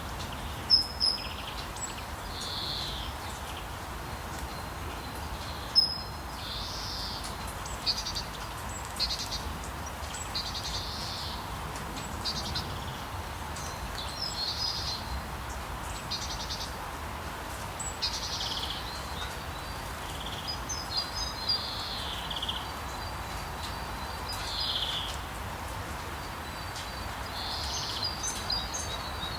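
Birds chirping and singing in short scattered phrases over a steady hiss of rain, with a few sharper, louder chirps.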